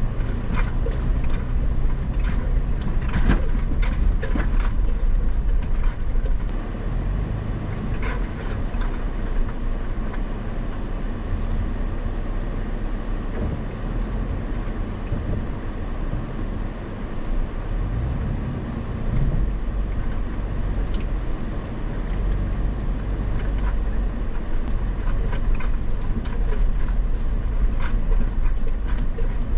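Off-road vehicle driving over a rough dirt trail: a steady low rumble of engine and tyres, with frequent rattles and knocks.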